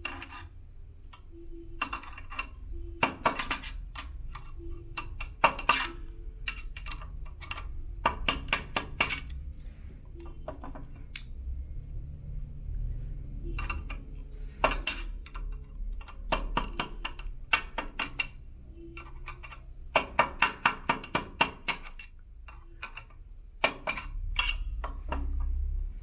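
Sharp metallic taps on a screwdriver, ringing briefly, in scattered runs of quick strikes: the bearings of an elliptical's one-piece crank being tapped to seat and lock them in place.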